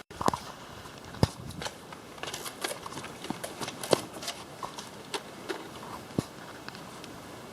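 Irregular string of short, sharp clicks and taps, with a few louder knocks: one about a second in, one near four seconds and one around six seconds.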